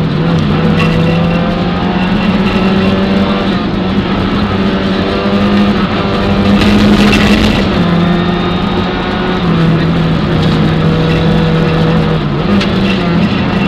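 Peugeot 205 rally car's engine heard from inside the cabin, driven hard along a stage, its note held high and stepping up and down as the driver changes gear and lifts for corners. A short rush of hiss comes about seven seconds in.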